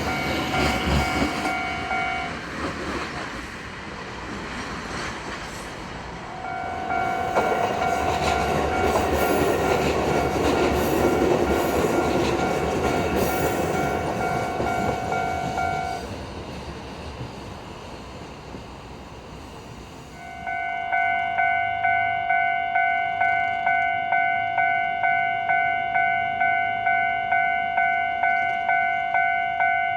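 Japanese level-crossing warning bell ringing its repeating electronic tone while a Kotoden electric train rumbles and clatters over the rails. The bell stops and the train noise fades, then the bell starts again about two-thirds of the way in, ringing in a fast, even beat.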